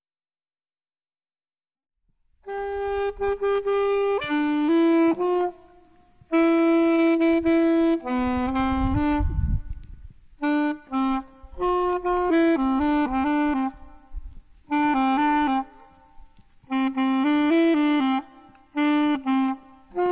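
Solo saxophone playing a slow melody in short phrases with brief pauses between them, starting about two seconds in.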